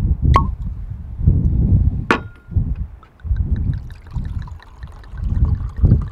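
Cork popping out of a wine bottle, a sharp clink of glass about two seconds in, then wine trickling and gurgling as it is poured into cups, all under heavy wind buffeting the microphone.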